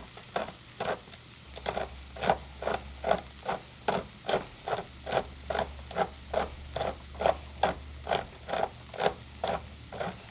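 Pepper mill grinding peppercorns, twisted in a steady rhythm of short grinding strokes, about two a second.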